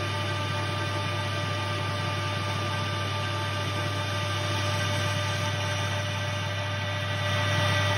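Metal lathe running steadily with its chuck spinning and the tool turning down a steel bar: a steady low hum with a set of higher whining tones over it.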